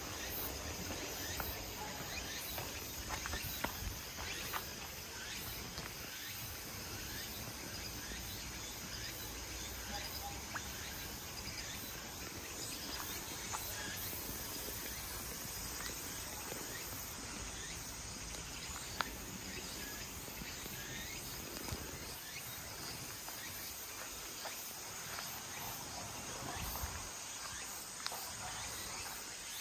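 A steady chorus of insects chirring high and continuously, with scattered soft footsteps and scuffs on a paved path.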